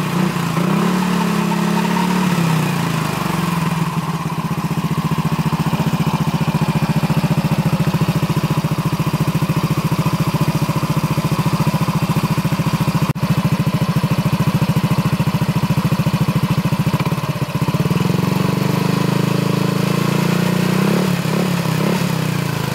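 Yamaha NMax scooter engine running through an aftermarket Pro Liner Neo Standard Racing exhaust, a steady pulsing idle that rises a little in revs near the start and again near the end. The exhaust note is loud and, to the owner, mellow and open.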